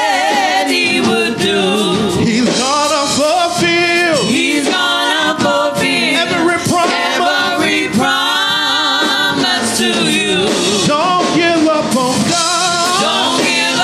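Gospel praise team singing through microphones, a male lead with women's voices, with wavering, held notes.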